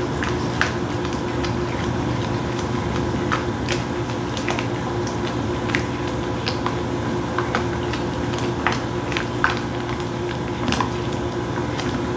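A utensil stirring a thickening cream sauce with mushrooms in a pan on the stove, with short clicks and scrapes against the pan at irregular moments. A steady low hum runs underneath.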